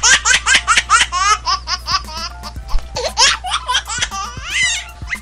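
A small child laughing in quick runs of high giggles, several bursts a second, with short pauses between the runs.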